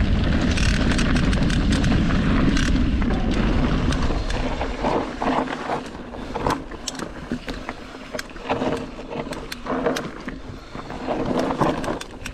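Mountain bike ridden fast down a rough trail. For the first few seconds wind rushes over the camera's microphone; then the bike rattles and knocks over the bumps.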